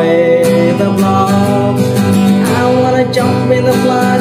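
A man singing with held, sustained notes, accompanying himself on a strummed acoustic guitar.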